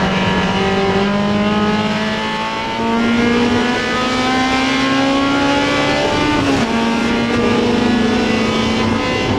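Honda CRX race car's four-cylinder engine pulling at full throttle, its pitch climbing steadily, then dropping sharply at an upshift about six and a half seconds in before climbing again.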